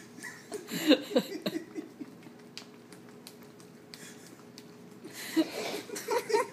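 Dog licking and smacking its lips at peanut butter on its nose: quick wet clicks and slurps in two short bursts, one about a second in and another near the end.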